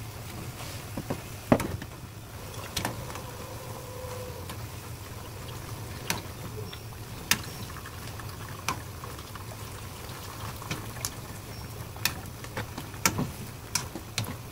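Napa cabbage leaves blanching in boiling water in a pan, the water bubbling and sloshing as metal tongs turn the leaves, with sharp clicks of the tongs against the pan, the loudest about a second and a half in. A steady low hum runs underneath.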